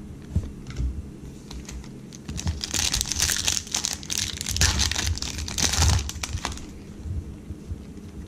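Baseball trading cards being handled and shuffled by hand: a quick run of small clicks and papery rustling, busiest through the middle of the stretch.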